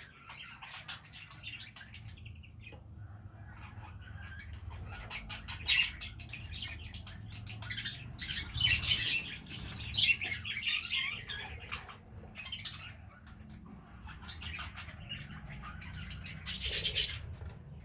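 Newly hatched budgerigar chicks giving raspy, rapid begging chirps in repeated bursts, loudest around the middle and again near the end.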